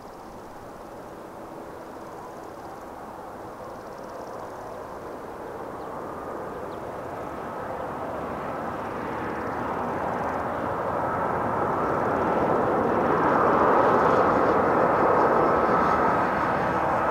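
Boeing 757 freighter on final approach, its twin jet engines growing steadily louder as it closes in, with a steady whine over the engine noise; it is loudest about four fifths of the way through.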